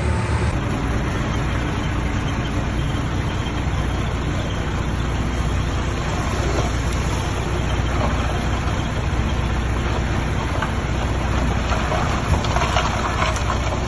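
Diesel engine of heavy earthmoving machinery running steadily, with a few sharp knocks near the end.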